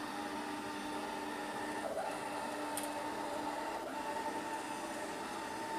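bObi Classic robotic vacuum cleaner running and steering around on its way back to its docking station: a steady motor whine and hum, its pitch shifting slightly every couple of seconds.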